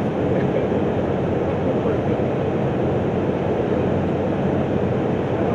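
A boat motor running steadily close by.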